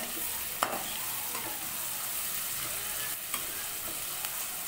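Chopped onions, green chillies, garlic and ginger sizzling steadily in hot oil while being sautéed to soften, stirred with a perforated steel spoon that clinks against the metal pan a few times.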